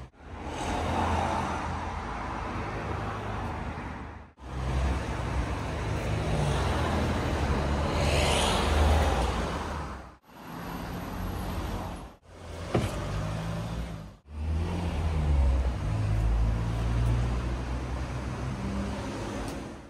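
An engine running under a steady rushing hiss, in about five short clips cut together with abrupt breaks between them.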